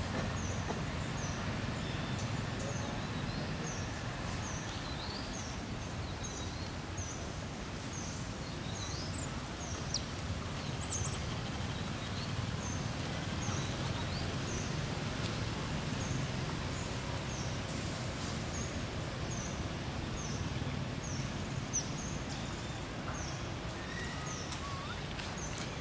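Outdoor ambience with a steady low rumble, and a short, high call repeated about three times every two seconds, with a brief gap near the middle.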